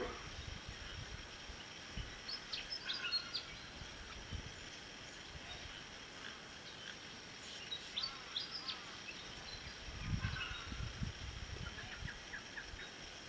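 Outdoor morning ambience with birds chirping in short scattered clusters over a steady hiss, and a few brief low rumbles.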